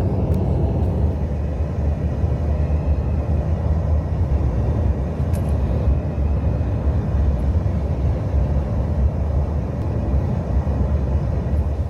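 Steady, loud low rumble of an airliner cabin in flight, with engine and airflow noise.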